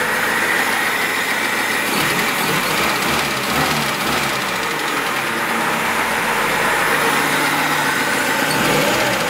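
Lada Niva 21213's carburetted four-cylinder engine idling steadily, with a slight ticking from somewhere in the engine.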